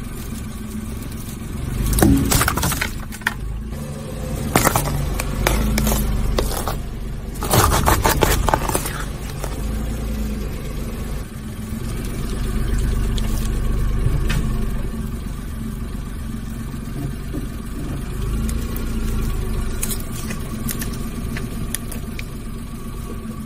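A car tyre rolls slowly over objects on concrete, over the steady low rumble of the car. There are several sharp crunches and cracks in the first half as a metal drink can is crushed, then softer squashing sounds, and a few small clicks near the end.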